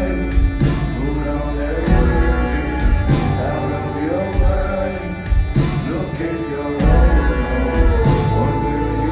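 Live band music: a male voice singing over acoustic guitar, fiddle and upright bass.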